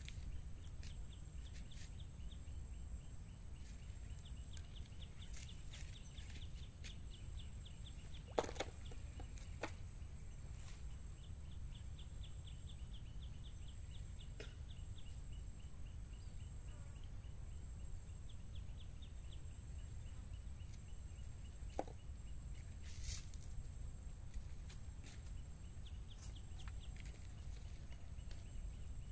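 Outdoor ambience: a steady low rumble, like wind on the microphone, with several short runs of faint, rapid, evenly spaced chirping and a few sharp clicks.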